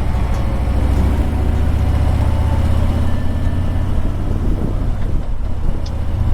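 Harley-Davidson Tri Glide trike's V-twin engine running steadily at road speed, a deep, continuous rumble with road and wind noise over it.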